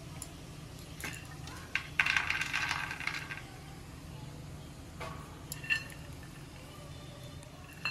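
Roasted peanuts clinking into a small steel cup: a few single ticks, and a rattling handful about two seconds in that lasts just over a second.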